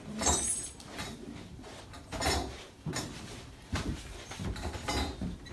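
Workshop clatter: irregular knocks and metallic clinks of tools and pipe being handled, several over a few seconds.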